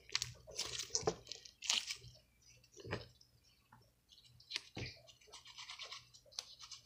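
Pink slime being squeezed, folded and stretched by hand, giving irregular wet squishing and crackling sounds.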